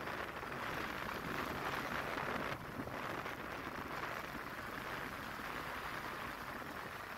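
Steady hiss of wind and road noise from a moving vehicle driving through town traffic, dipping slightly about two and a half seconds in.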